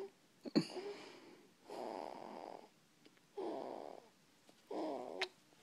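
Snoring in sleep: a short snort about half a second in, then three rasping snores, each just under a second long, coming about every one and a half seconds.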